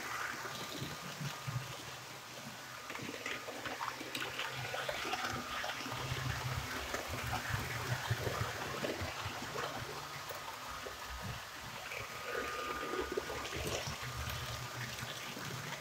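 HO-scale model trains running on sectional track: a steady low motor hum and wheel rumble, with small clicks as the wheels cross rail joints and points, and a faint high motor whine that comes and goes.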